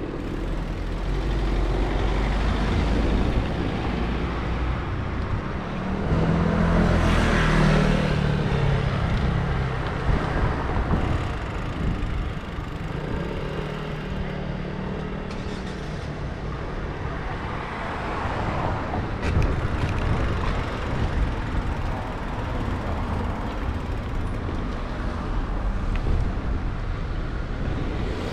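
City street traffic heard from a moving bicycle: a steady rush of road noise with motor vehicles passing. The closest and loudest pass is about seven seconds in, and another engine hums past a few seconds later.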